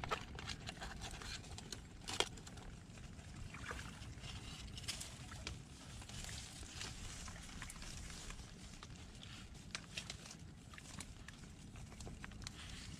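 Digging in wet mud by hand and with a wooden stick: squelching and scraping, with a few sharp knocks, the loudest about two seconds in.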